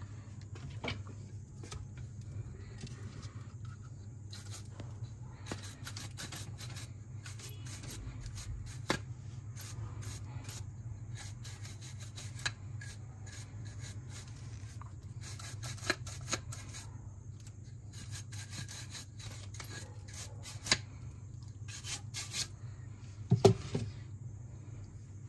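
Dirt being rubbed and scraped off the muddy chassis of an off-road RC car: intermittent scratchy rubbing with a few sharp knocks, the loudest near the end. A steady low hum runs underneath.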